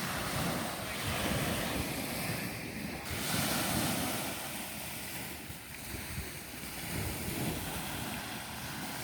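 Small waves washing onto the beach in slow swells, with wind buffeting the microphone.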